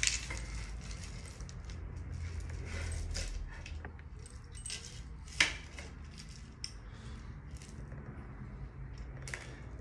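Scattered metallic clicks and clinks of steel bolts knocking against a magnet and each other as they are picked up, one sharper clink about halfway through, over a low steady hum.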